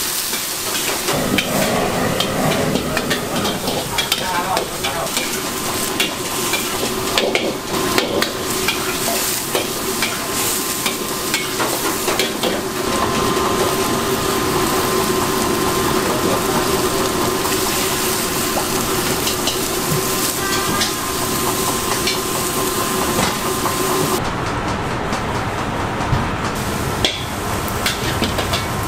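Food sizzling in a steel wok over a high gas flame as pad thai is stir-fried, with a metal ladle repeatedly scraping and clanking against the wok.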